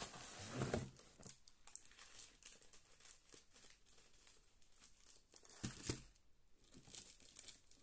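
Clear plastic packaging crinkling as it is handled, busiest in the first second and fainter afterwards, with a soft knock about two-thirds of the way through as a small plastic bag is set down on the table.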